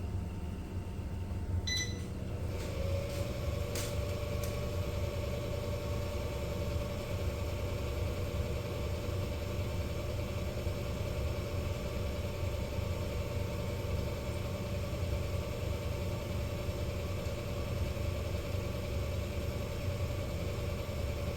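Air fryer beeping once as it is switched on, with a few button clicks, then its fan spinning up and running with a steady whirring hum as it preheats.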